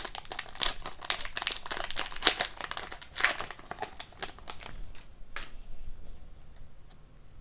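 Foil hockey card pack wrapper being torn open and crinkled by hand, a dense crackling that dies down about four seconds in.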